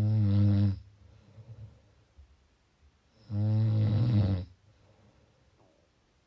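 Person snoring: two loud, low-pitched snores about three seconds apart, the first ending under a second in and the second lasting about a second and a half, with quiet breathing between.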